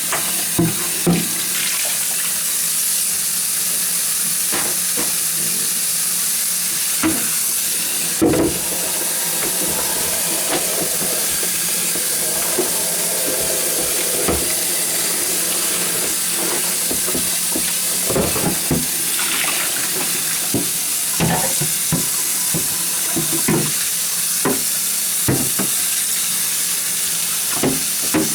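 Tap water running steadily into a sink while refrigerator drawers are rinsed, with scattered knocks and clunks as they are handled.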